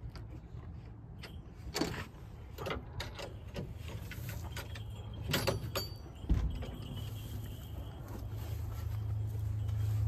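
Wooden barn door being clipped open: a few sharp clicks and knocks from its metal hook latches and boards, then one heavier thump a little past halfway. Under this is a steady low wind rumble on the microphone that grows louder near the end.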